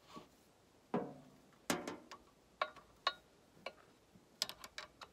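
Hydraulic hose fittings and quick couplers clicking and clinking as they are handled and pushed home on a tractor's loader valve: a string of sharp metal clicks, some ringing briefly, with a quick cluster near the end.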